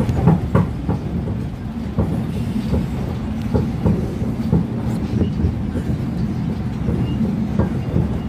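Subway train running at speed over a steel truss bridge, heard from inside the car: a steady low rumble with the wheels clicking over the rails every second or so.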